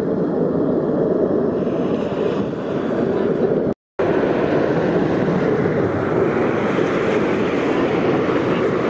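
Steady jet noise from Blue Angels F/A-18 Super Hornets flying their display. The sound cuts out for a moment about four seconds in.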